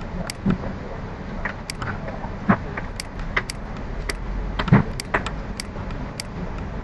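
A series of irregular sharp clicks, about two a second, with a few duller thuds among them, over a steady background hiss and hum.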